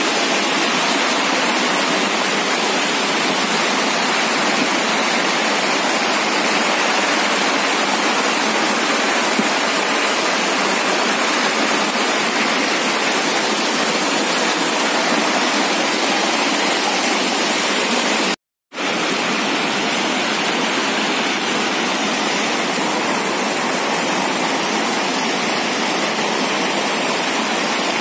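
Muddy floodwater rushing and churning in a fast current, a loud steady roar of water. It cuts out for an instant about two-thirds through, then carries on the same.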